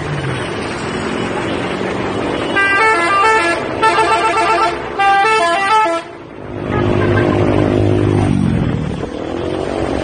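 Street traffic noise with a multi-tone telolet horn playing a quick melody of short stepped notes from about two and a half to six seconds in, followed by a longer, lower held tone.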